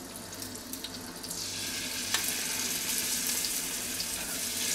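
Hot oil sizzling and crackling in a cast-iron Dutch oven. The sizzle grows louder about a second in, as tomato paste is squeezed into the hot oil.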